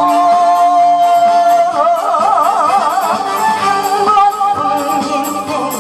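A woman singing a Korean song over a loud recorded backing track, holding one long note and then moving into a phrase with strong vibrato.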